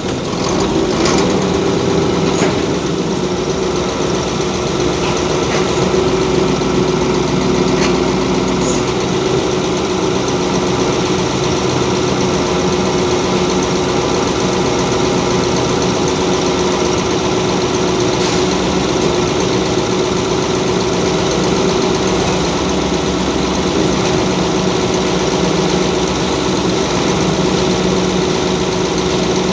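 Mobile crane's engine running steadily while the hoist lifts a steel roof truss, a constant hum with a few faint clicks in the first several seconds.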